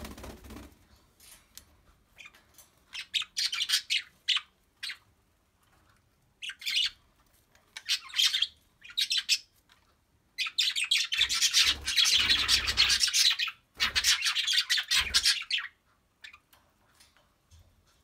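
Cockatiels chirping and squawking in short bursts, with a longer, louder run of harsh squawking about two-thirds of the way through.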